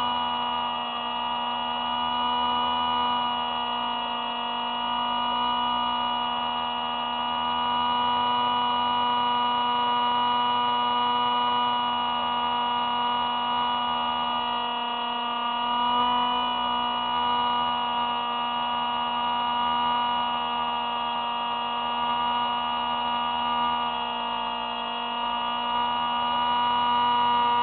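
SpyHawk RC spy plane's electric motor and propeller whining steadily in flight, heard close up through the plane's onboard camera. The pitch shifts slightly about two-thirds of the way through and again near the end.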